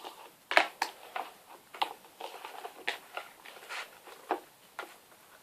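Stiff homemade glue-and-borax slime being worked, giving irregular sticky clicks and squishes, a handful of them a second.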